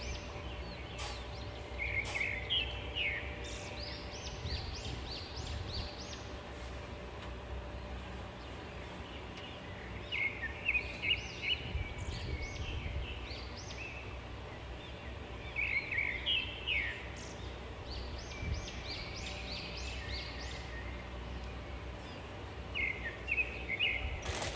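A bird chirping in short runs of quick sliding notes every several seconds, over a steady low hum with a few faint clicks.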